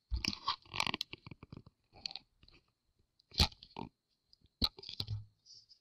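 Irregular clicks, taps and crackling handling noise at an electronics bench, as multimeter probe leads and a laptop motherboard are moved about. Two sharper knocks stand out in the second half.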